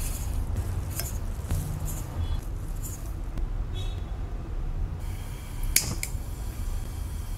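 Granulated sugar pouring into a small nonstick saucepan, then light scrapes and clicks as the pan is handled. One sharp click about six seconds in as the pan goes back onto the stove. A steady low hum runs underneath.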